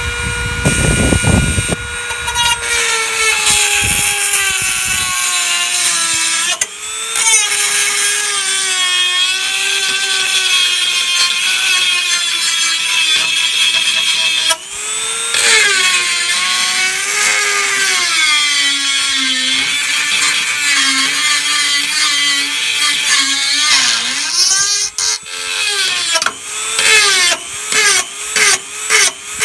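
Power grinder running, its motor whine dipping and rising in pitch as it is pressed into the work, over a harsh high hiss. Near the end it goes in short pulses about twice a second.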